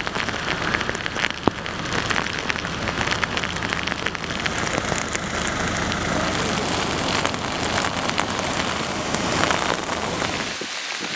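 Heavy typhoon rain falling steadily, with close drops landing in many sharp little ticks. One tick about a second and a half in is louder than the rest. The low rumble under the rain falls away near the end.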